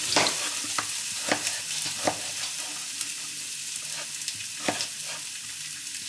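A knife cuts potato on a plastic cutting board, knocking on the board every second or so, over the steady sizzle of diced potatoes frying in olive oil in a pan.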